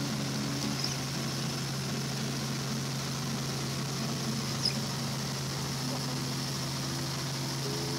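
Helicopter engine and rotor running in flight: a steady, unbroken drone with a constant low hum and a hiss above it.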